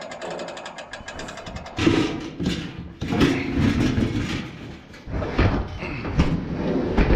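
Crib conveyor running steadily with a fast, even chatter, then from about two seconds in a run of loud, irregular clattering and thumps.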